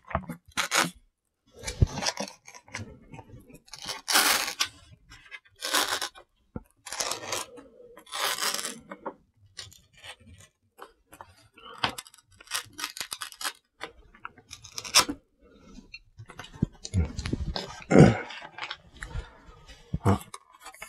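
Dry tearing and crinkling in short bursts as the paper lid of a cup of instant ramen is peeled off and crisp sheets of seasoned laver (gim) are torn into the noodles, with a couple of louder knocks near the end.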